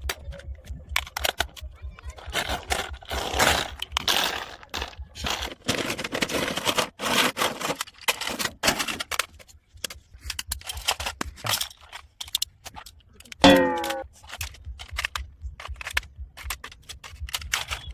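Irregular plastic clicks, rattles and scrapes from a small toy RC car being handled and moved. There is one short pitched, gliding sound about thirteen seconds in.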